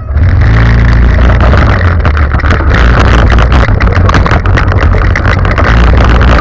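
Small go-kart engine running hard close to the kart-mounted microphone, very loud, with rattling and jolting from the frame and wind over the mic as the kart drives across the grass. It jumps sharply in loudness right at the start.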